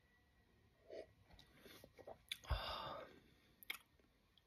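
Quiet mouth sounds of someone drinking a sip of spicy amaro: a gulp about a second in, then a low thump and a short breathy exhale about halfway through, followed by a few lip smacks.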